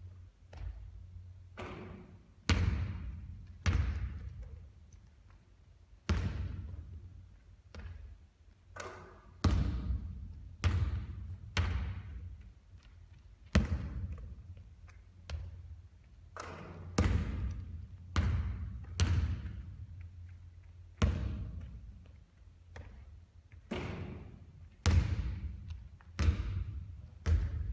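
Basketballs bouncing hard on a court floor during three-point shooting practice: a string of echoing thuds, one every second or so at uneven intervals.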